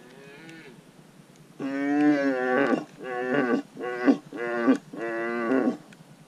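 Red deer stag roaring in the rut. A faint call opens, then about a second and a half in comes one long, loud roar, followed by four shorter roars in quick succession.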